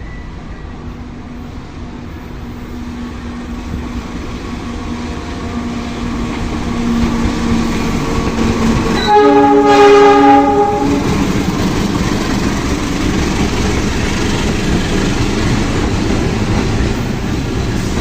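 Indonesian CC 206 diesel-electric locomotive hauling a container freight train, its engine growing steadily louder as it approaches. About nine seconds in it sounds its horn, a chord of several tones, for about two seconds. The steady rolling noise of the train follows.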